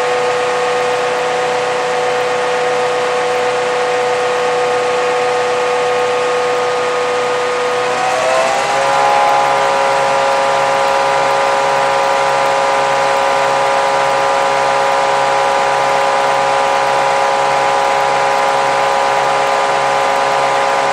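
MÁV M61 Nohab locomotive's 16-cylinder EMD 567 two-stroke diesel engine, heard from inside the engine room, running under load. About eight seconds in it speeds up a notch, its pitch rising, and holds at the higher speed until near the end.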